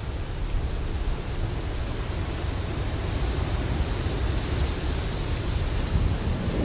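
Wind buffeting the microphone: a steady, rough low rumble of noise.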